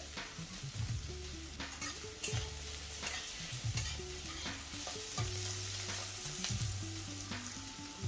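Chopped vegetables (onion, carrots, peas and capsicum) sizzling steadily in hot oil in a pan while being sautéed, with short stirring scrapes every second or so.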